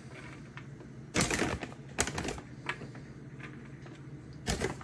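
Shredded mozzarella being grabbed by hand and sprinkled onto a metal sheet pan: irregular light clicks and crackly rustles, the loudest cluster about a second in and another near the end, over a steady low hum.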